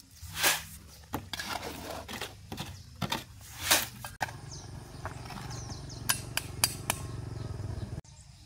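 Steel shovel scraping wet cement mortar out of a metal wheelbarrow pan, two loud scrapes with knocks and clinks between them, the loudest about three and a half seconds in. After that a steady low hum with a few sharp clicks.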